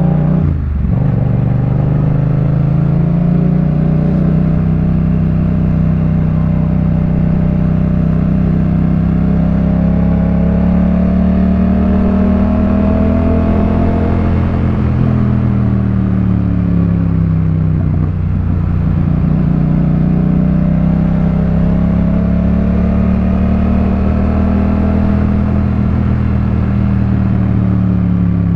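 2018 Yamaha MT-07's 689 cc parallel-twin running through a Jeskap K4 full exhaust system while riding. The engine pitch climbs slowly and falls back twice, with a brief break about half a second in.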